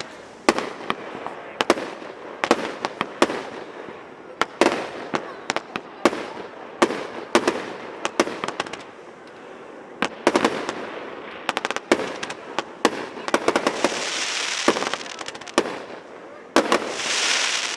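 Firework shells bursting in a professional display, with sharp bangs in quick, irregular succession, sometimes several close together. Twice near the end a swell of hiss rises over the bangs.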